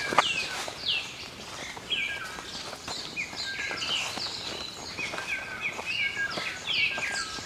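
Several small wild birds calling and singing at once: many short chirps and quick gliding notes, overlapping steadily. Just after the start there is one sharp click.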